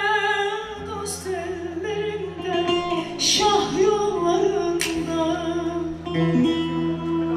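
A woman singing live into a microphone, with sustained, bending vocal lines over plucked-string accompaniment that includes a bass guitar, all amplified through PA speakers.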